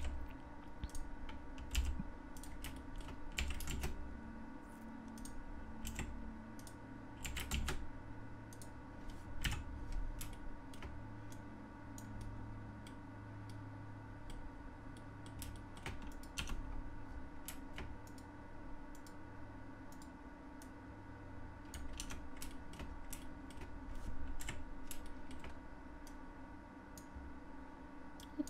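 Computer keyboard keys tapped in irregular short clusters, Blender shortcut keystrokes, over a faint steady hum.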